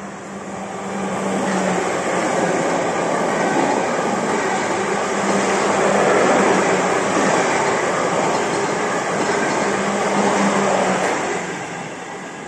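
A South Western Railway electric multiple unit passing through the station at speed. Its noise builds over the first couple of seconds, holds as the carriages go by with a low hum coming and going, and fades near the end as the train leaves.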